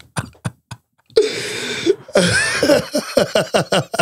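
Hearty laughter in quick rhythmic bursts, opening with a breathy, cough-like burst just over a second in.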